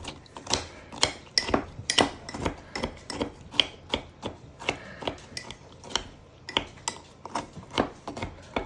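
Spoon clinking and scraping against a mug while crushing Oreo cookies soaked in milk, in short repeated strokes about twice a second.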